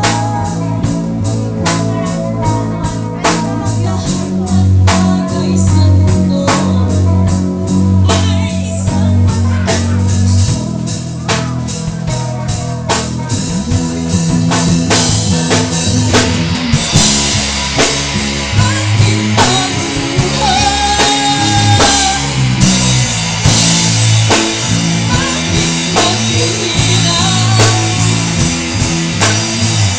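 Rock song played by a band: drum kit keeping a steady beat under bass and guitar, with a sung vocal line.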